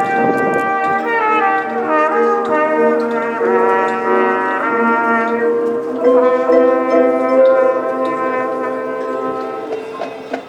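High school marching band brass playing full, sustained chords that change every second or two; the last held chord fades away near the end.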